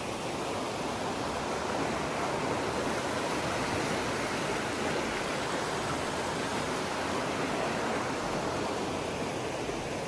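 Steady rushing noise with no distinct events, swelling slightly after the first second or two and then holding even.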